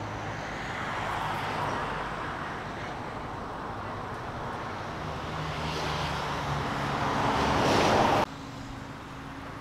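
Street traffic: engines and tyres of vehicles going by, swelling to its loudest as one comes close about eight seconds in, then cutting off abruptly. A quieter steady hum follows.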